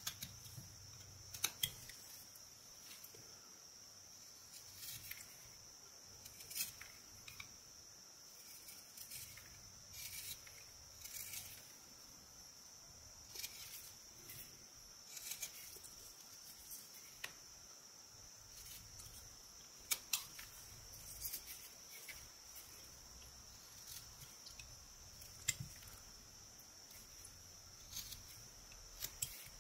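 Whittling knife, a modified boning knife, slicing chips from an eastern white pine carving: quiet, irregular short cutting strokes with a few sharp clicks, over a faint steady high-pitched hiss.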